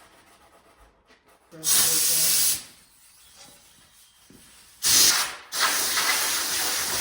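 Compressed air hissing in bursts that switch on and off sharply: about a second long after a second and a half, a short one near five seconds, then a steady hiss from about five and a half seconds on.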